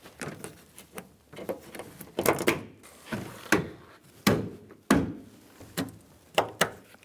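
Plastic interior door trim panel being pressed and struck into place on a van's cargo door, its push-in retaining grommets snapping into their holes: an irregular series of sharp thumps and clicks, more than a dozen in all.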